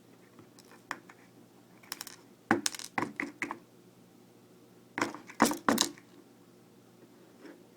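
Small metal clicks and taps as pins and drivers are worked out of a disassembled Medeco M3 lock cylinder, a few single ticks and then two quick clusters, about two and a half and five seconds in.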